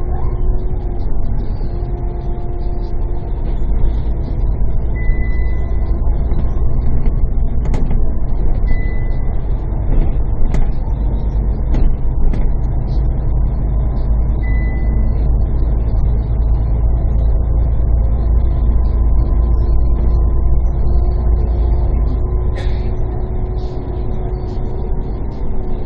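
Steady low engine and road rumble of a moving bus, heard from inside, with a faint steady whine over it. Three brief faint high beeps come a few seconds apart in the first half.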